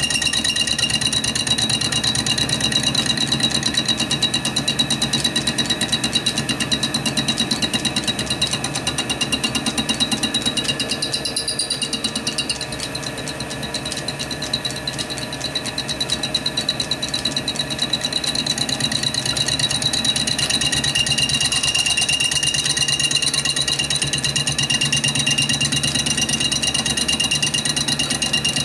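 Lathe fly cutting an aluminium casting: a tool bit held in the four-jaw chuck strikes the work on every revolution, giving a fast, steady rattle with some chatter in the cut. It eases off for a few seconds about twelve seconds in, then picks up again.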